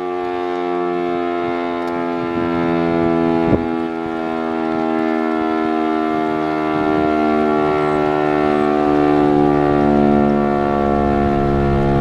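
Federal Signal STL-10 three-phase chopper siren sounding a steady single-tone attack signal, its pitch drifting slightly lower. A single brief knock about three and a half seconds in.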